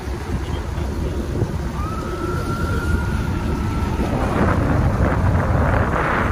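Wind buffeting the microphone over a steady low rumble. About two seconds in, a thin high tone sounds for about two seconds, and near the end a rushing hiss swells up.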